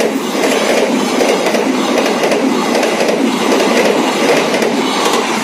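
Argo Sindoro passenger train's coaches passing close by at speed: a loud, steady noise of steel wheels on the rails, easing a little near the end as the last coach goes by.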